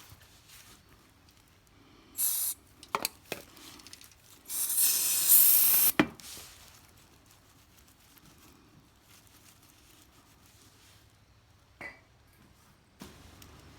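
Two bursts of high hissing, a short one and then a louder one lasting about a second and a half that ends in a sharp click, with a few light metallic clinks between them and another faint click near the end.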